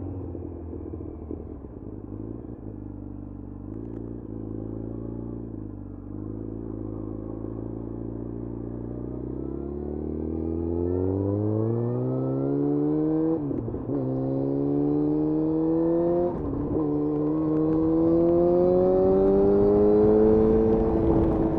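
Yamaha FZ1's 998 cc inline-four engine running at low, steady revs, then pulling away and revving up through the gears, with two brief drops in pitch at the upshifts about halfway through and three-quarters of the way through.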